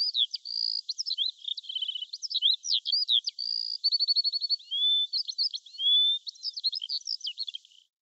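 A songbird singing a fast, varied song of chirps, short rapid trills and rising whistles, high and thin with nothing low in it; it stops shortly before the end.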